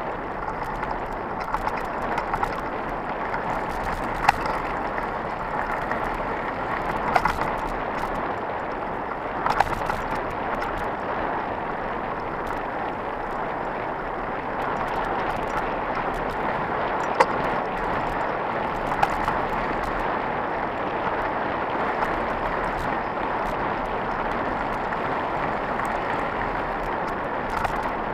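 Mountain bike rolling fast over a dirt and gravel track: a steady rushing noise of tyres and rattling bike, with several sharp knocks as it hits bumps and stones.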